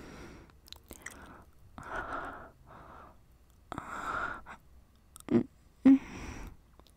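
A woman's breathy exhales close to the microphone, coming about a second apart, with two short, louder voiced sounds near the end.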